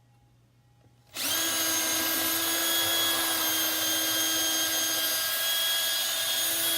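Power drill starting up about a second in and running steadily at speed, boring out a handle screw hole in the cabinet with a larger bit so the screws will fit.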